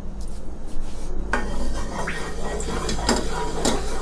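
A wooden spatula scraping and knocking against the inside of a nonstick wok, spreading the cooking oil, starting a little over a second in and going on in irregular strokes.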